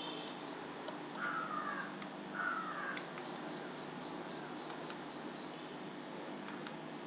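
Birds chirping faintly, with two louder sweeping calls in the first few seconds, a few sharp clicks and a steady low hum.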